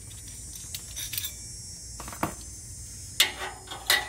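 Light metallic clinks and taps of an exhaust clamp's bracket, U-bolt and nuts being handled and fitted against the exhaust pipe: several sharp clicks about a second apart.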